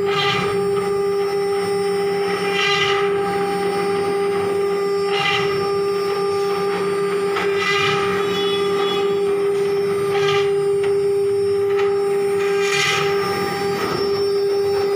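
CNC glass engraving router running: its spindle gives a steady, high whine, with a short scratchy burst about every two and a half seconds.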